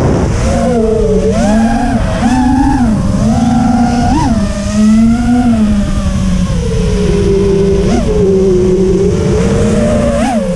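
FPV racing quad's brushless motors and 3.5-inch HQProp Ethix P3.5 propellers whining as it flies, the pitch swelling and dipping with the throttle and jumping up in a few quick punches. A rush of wind runs underneath, heard from the camera mounted on the quad.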